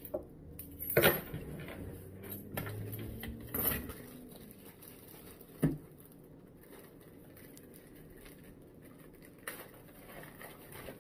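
Handling noises of unpacking: rustling with several sharp knocks, the loudest about a second in, and quieter ones spread through the rest.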